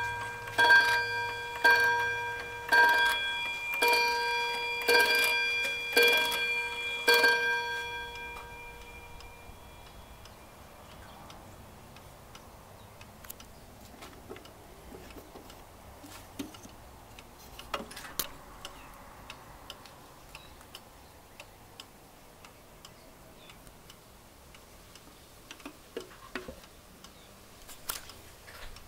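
Key-wound 30-day schoolhouse pendulum wall clock striking the hour at eight o'clock, set off by turning the minute hand to twelve: a ringing strike about once a second for the first seven seconds, each note carrying on into the next, then dying away. After that the movement ticks faintly, with a few louder clicks.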